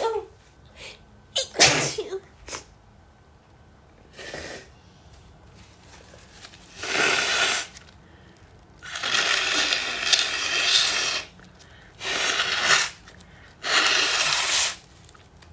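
A woman in a sneezing fit she cannot stop: a sharp sneeze about two seconds in, then four long breathy stretches, each a second or more, as the fit goes on.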